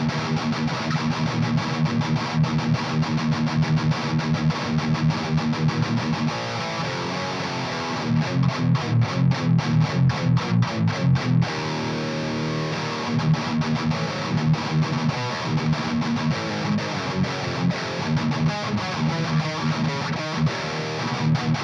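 High-gain distorted electric guitar played through a Splawn Quickrod 100, a modded-Marshall-style amp, into Celestion Vintage 30 speakers: chugging riffs, with a faster run of even chugs, about four a second, a third of the way in.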